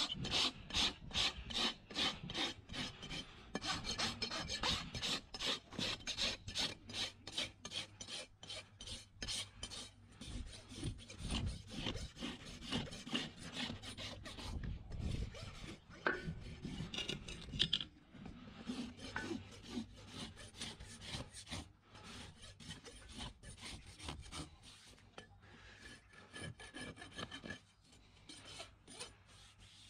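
Farrier's hoof rasp filing a horse's hoof in repeated back-and-forth strokes, about three a second, growing fainter and less regular in the second half.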